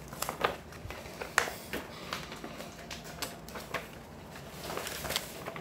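Sheets of printed paper rustling as they are handled and leafed through, in a series of irregular short rustles.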